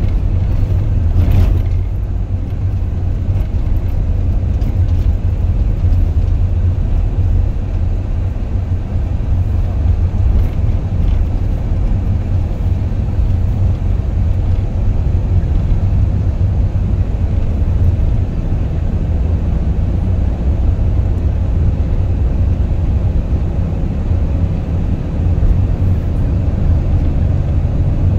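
Steady low rumble of a Nissan NV350 van on the move, heard from inside the cabin: engine and road noise while driving.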